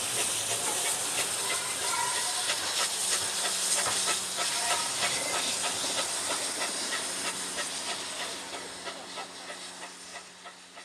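GWR 14xx 0-4-2T auto tank steam locomotive pulling away: a steady hiss of steam with short beats running through it, fading out gradually over the second half.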